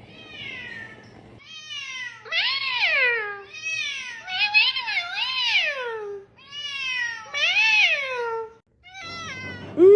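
A cat meowing over and over: a faint call, then five long, drawn-out meows, each rising and falling in pitch, some with two rises.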